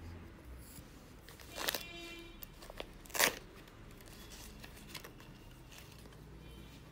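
Faint handling sounds of crocheting: cotton thread and a metal crochet hook worked between the fingers, with two brief louder scrapes about one and a half and three seconds in, over a low steady hum.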